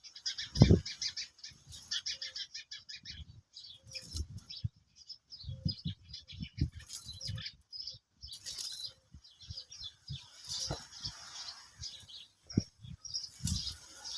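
Small birds chirping in quick, repeated runs of short high notes, with scattered low thumps and knocks underneath.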